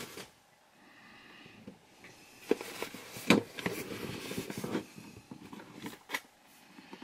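Handling noise from unboxing: rustling packaging and a few sharp knocks as a printed cardboard product box is lifted out and handled, busiest in the middle with a last knock near the end.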